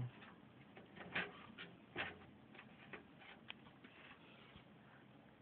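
Faint, irregular clicks and light scrapes of a screwdriver tightening the mounting screw of a graphics card's bracket into a desktop computer case.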